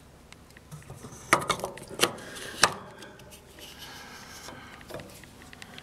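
A few sharp metallic clinks and clanks from metal parts being handled in a car's engine bay: three loud strikes, each a little over half a second after the one before, starting about a second and a half in, then quieter handling noise.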